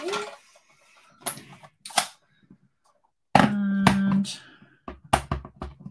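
Sharp small plastic clicks and taps from stamping supplies, an ink pad case and clear acrylic stamp blocks, being handled on a craft desk: two single clicks, then a quick run of clicks near the end.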